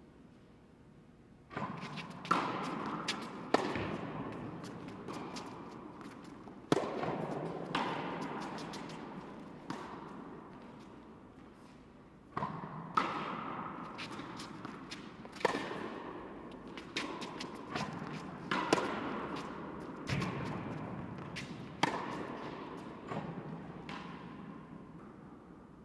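Tennis balls struck by rackets and bouncing on a hard court: sharp hits at irregular gaps of one to three seconds, each echoing through a large indoor tennis hall.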